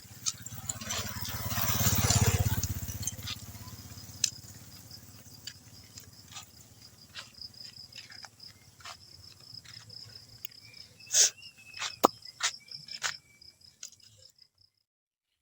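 Field insects, crickets, chirping steadily in a high trill, with a low rush of noise swelling and fading about two seconds in and scattered sharp clicks and taps, thickest near the end. The sound cuts off about a second before the end.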